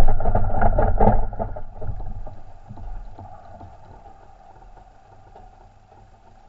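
Single-seater racing car's engine crackling and sputtering as the car comes to rest at the end of a spin. The sound dies away over a few seconds to a faint wind hiss.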